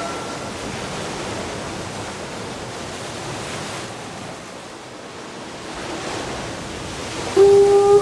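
A soft, even rushing noise like surf, swelling and ebbing. About seven seconds in, a conch shell starts a loud, steady horn note.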